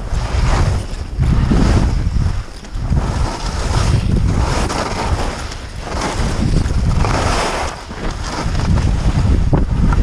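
Strong wind buffeting the camera microphone in a loud, uneven low rumble, with swells of hissing snow as the rider's edges scrape through turns.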